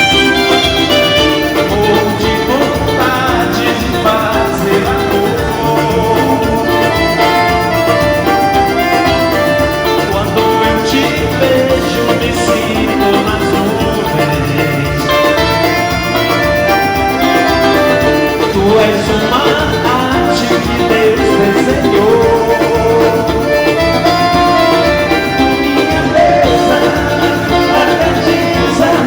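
Live band music with a steady beat, Latin-style instruments playing throughout and a singing voice in places.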